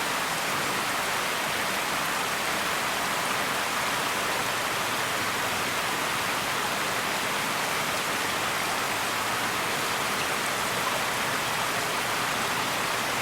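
Steady, even hiss at a constant level, with no distinct sounds standing out.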